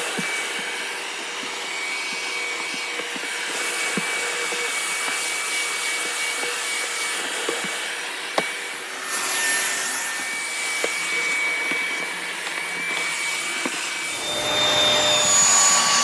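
A Bissell Featherweight stick vacuum in handheld mode with a crevice tool, its motor running with a steady high whine as it sucks along carpet. There are a few sharp ticks, and the whine shifts pitch a couple of times as the nozzle moves.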